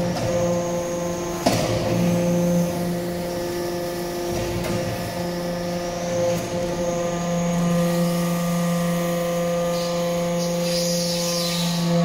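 Hydraulic metal-chip briquetting press running, its hydraulic pump and motor giving a steady hum with several held tones. A single sharp knock comes about one and a half seconds in.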